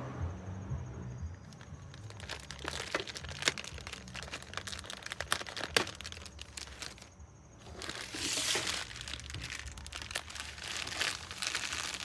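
Packaging of a strut kit being opened and handled: crinkling and rustling, with many scattered clicks and knocks. The rustling is loudest about eight seconds in.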